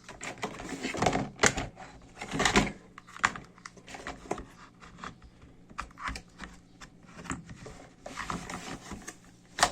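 Irregular hard plastic clicks, knocks and rustling from a cordless drill's lithium-ion battery pack being handled, with a sharp click near the end.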